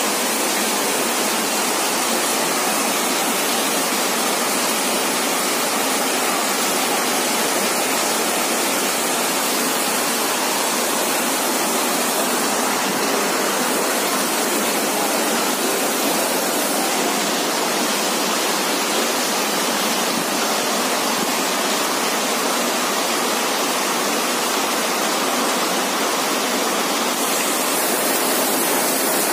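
Steady rushing of running water, an even hiss with no breaks. The top of the hiss shifts slightly at a few points.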